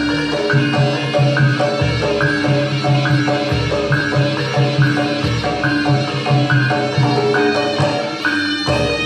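Gamelan-style accompaniment music for a kuda lumping horse dance: struck metal mallet instruments play a repeating melody, about two notes a second, over a recurring bass line.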